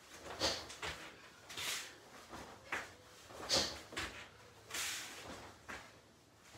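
Short swishing noises from repeated karate front snap kicks being thrown and snapped back, roughly one every second.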